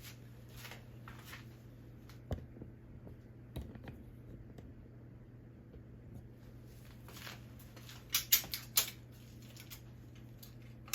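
Scattered small clicks and taps of hand work on homemade percussion caps, pressing them with a matchstick and handling the cap-making tool. A quick cluster of sharper clicks comes about eight seconds in, over a low steady hum.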